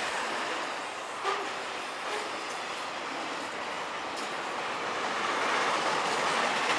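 Freight train of trailers on flatcars rolling past: steady wheel-and-rail noise from the passing cars. There is a brief sharp sound about a second in.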